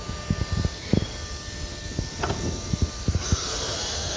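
CNC router starting its automatic tool-change and tool-measurement cycle: a faint steady whine from the drives with scattered low knocks. A steady hiss starts about three seconds in.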